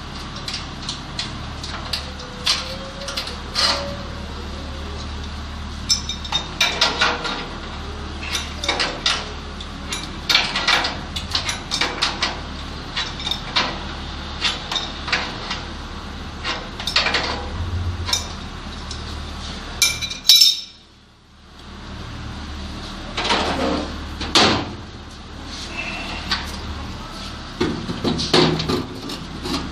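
Scattered metallic clicks, clinks and knocks of a screwdriver and sheet-metal parts being handled on a wall-mounted gas water heater during repair. There is a brief gap of near silence about two-thirds of the way through.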